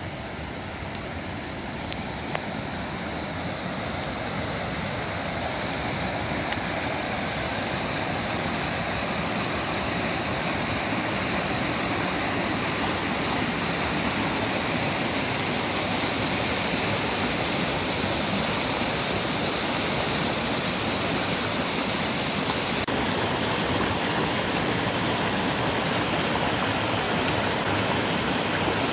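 Rushing creek water: a steady wash of white water, growing louder over the first ten seconds or so and then holding steady.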